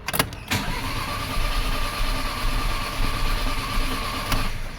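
Starter cranking an Audi 1.4 TFSI (CAXA) four-cylinder engine for about four seconds, with a steady whine, then stopping abruptly without the engine catching. It is a crank-but-no-start after an engine overhaul.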